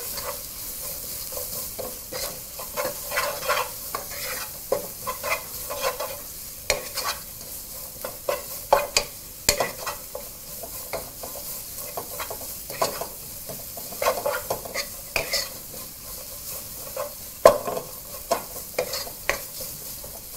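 Sliced red onions and garlic frying in oil with a steady sizzle, while a wooden spoon stirs them around the pot, making frequent irregular scrapes and knocks against the pot.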